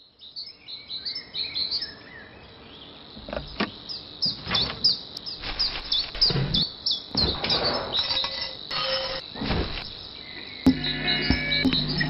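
Birds chirping outdoors: a long run of short, quick calls repeated over and over, with a few low rumbles in between. A low steady hum comes in near the end.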